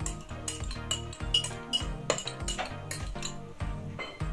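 A metal whisk and a glass bowl clinking and scraping against a nonstick frying pan, many short clinks, as beaten egg is poured and spread over cooked noodles. Background music with a steady beat runs underneath.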